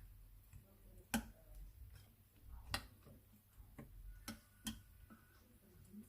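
A few faint, sharp clicks, four clear ones spaced irregularly, of a spoon knocking against a bowl as the dipping sauce is stirred.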